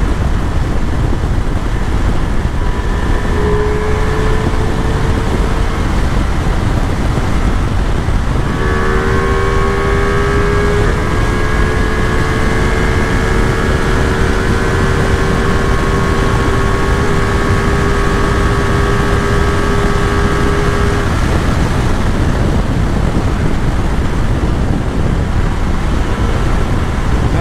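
Ducati Multistrada V4 S ridden hard at highway speed, the mic filled with a steady wind rush and low rumble. A steady whine comes in briefly near the start, then holds again from about nine to twenty-one seconds in.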